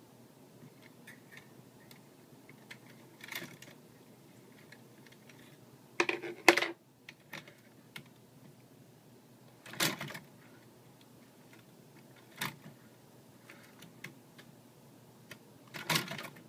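Metal parts of a home-built nitinol heat engine, perforated metal strips and a swinging weighted arm, clicking and clattering as they move and are handled. The clacks come a few seconds apart, the loudest cluster about six seconds in with a short metallic ring.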